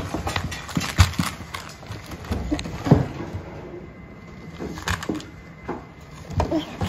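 Scattered knocks and taps of small hands and a plastic toy on a wooden floor, a few seconds apart, with a few faint short vocal sounds from the small children.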